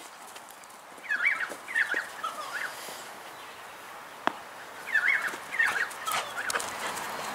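Birds calling in two bouts of quick, wavering chirps, about a second in and again around five seconds in, with a single sharp click in between.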